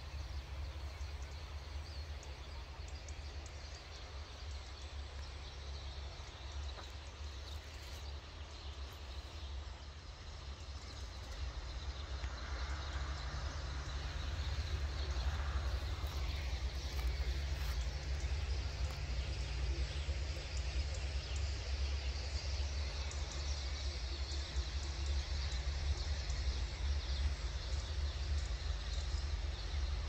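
A large flock of starlings chattering in the trees: a dense hiss of countless overlapping calls that grows louder about halfway through, over a steady low rumble.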